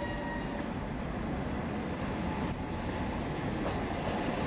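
Berner Oberland-Bahn electric train moving past close by, its wheels rumbling and clicking over the rail joints, getting louder toward the end. A short steady tone sounds right at the start.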